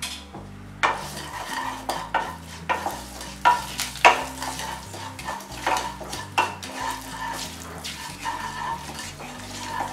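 Wooden spatula scraping and stirring a spice tempering of curry leaves, seeds and chilli powder in a little hot oil in a non-stick kadai, with a light sizzle. The strokes start about a second in and repeat irregularly, several a second.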